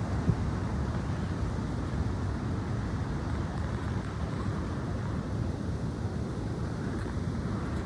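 Strong wind blowing steadily, with low rumbling from the wind hitting the microphone.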